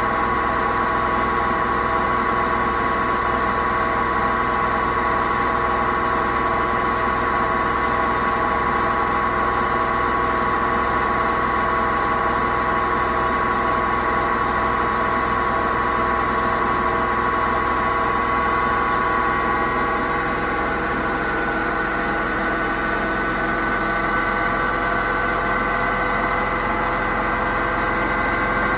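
Hoover VHD 9163 ZI washing machine spinning, with a loud, steady drone of several held tones; its drum bearings are broken. The tones shift slightly about twenty seconds in.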